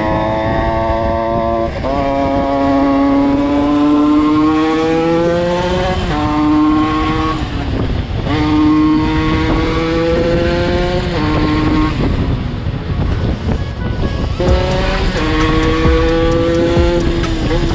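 Small two-stroke dirt bike engine under way, revving up through the gears: the pitch climbs steadily, drops at each shift and climbs again, several times over, with wind rush behind it.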